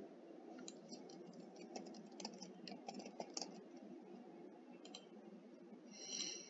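Faint computer keyboard typing: a quick run of key clicks over a steady low hum, with a short brighter sound near the end.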